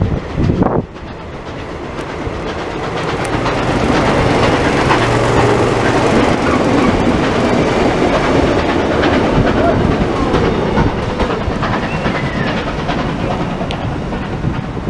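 Passenger coaches of a steam-hauled train passing at speed, steel wheels running on the rails. The noise builds to its loudest mid-way, then slowly fades as the last coaches go by.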